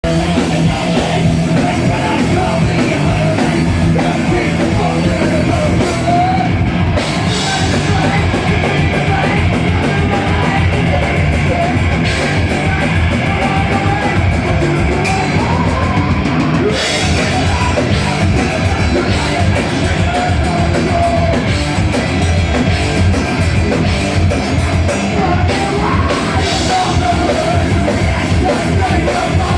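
Heavy metal band playing loud and continuously: distorted guitars, rapid drums and sung vocals.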